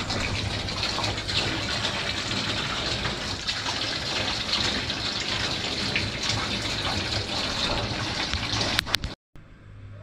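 Water running hard from a tap into a bathtub, filling it with a steady rush. A couple of sharp clicks come just before the rush cuts off abruptly near the end.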